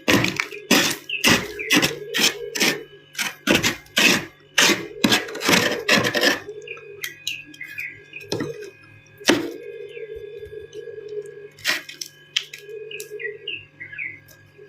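Ice being bitten and chewed close to the microphone: a dense run of sharp crunches for about six seconds, then a few scattered single crunches.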